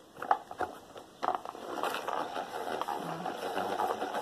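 Pink plastic salad bowl and its lid being handled: two sharp plastic clicks in the first second, then from about a second in a steady stream of small clicks and rubbing.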